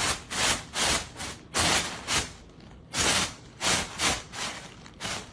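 A series of scratchy rubbing strokes, about two a second and uneven in length.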